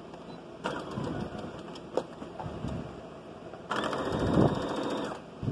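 Electric sewing machine stitching in two short runs, the needle clattering rapidly over a steady motor whine. One run starts just under a second in and lasts about a second and a half; the second, louder run comes near the end. The machine is sewing a bodice to its lining along the armhole seam.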